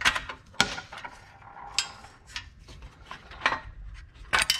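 Sharp metal clicks and clinks, about half a dozen spread out with the loudest two close together near the end, as the fuel gauge and its screws are worked loose from a die-cast aluminum instrument cluster housing.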